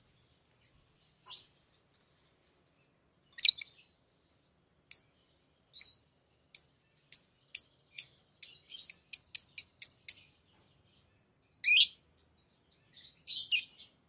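Small pet parrot giving short, sharp, high chirps, spaced out at first, then quickening to about three a second, followed by a longer call and a short burst of chatter near the end.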